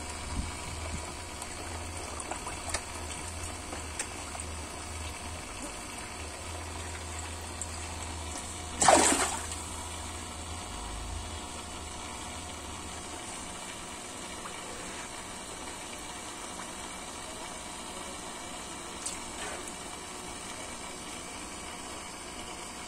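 Steady churning and splashing of water in a koi pond as the koi crowd the surface to feed, with one louder splash about nine seconds in.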